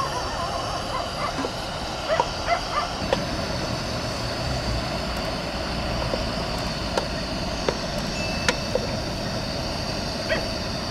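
Wood-fire hearth crackling with scattered sharp ticks under a pot of fish roe cooking down its water, over a steady low outdoor rumble.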